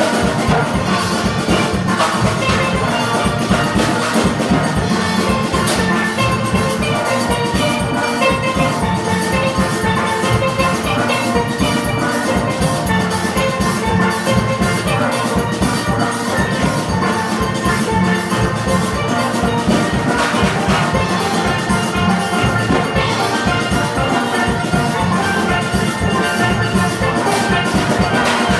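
Youth steel orchestra playing: a section of steel pans plays a busy, many-note tune over percussion keeping a steady beat.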